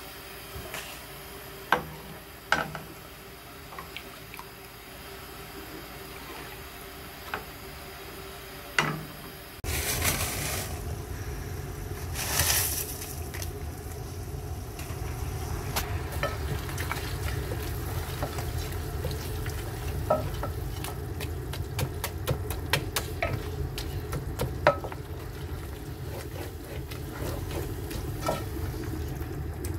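Chicken pieces and frozen peas sizzling as they fry in an aluminium pot, stirred with a wooden spoon that scrapes and knocks against the pot in many quick clicks. This starts suddenly about ten seconds in, loudest just after it starts; before that there is only a quiet steady hiss with a few sharp knocks.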